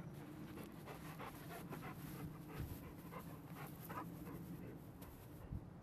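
Dog panting with quick, even breaths that die away about four seconds in.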